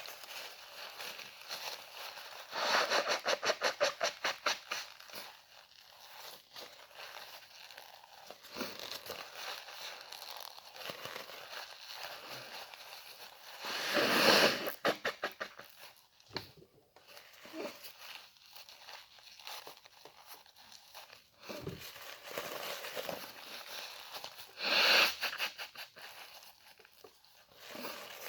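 A person blowing their nose hard into a tissue three times: a long blow with a rapid flutter about two and a half seconds in, another about halfway through, and a short one near the end. Tissue rustles and crinkles softly between the blows.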